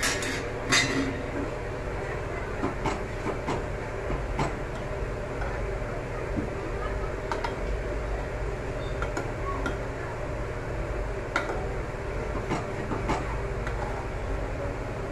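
A metal spoon stirring in a metal pot of thickening milk pudding, with irregular clinks and scrapes against the pan, a few louder ones in the first second. Under them runs a steady low hum.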